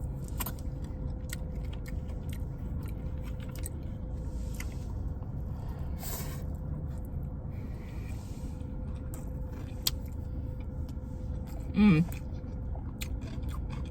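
Person quietly chewing a bite of sushi, with faint scattered clicks, over the steady low hum of a car interior. A short murmured "mm" comes near the end.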